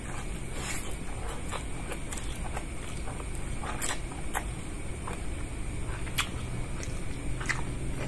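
Close-up mouth sounds of a man eating instant noodles by hand: chewing with wet smacks and clicks, and slurping a strand of noodles in, heard as short sharp sounds every second or so over a steady low hum.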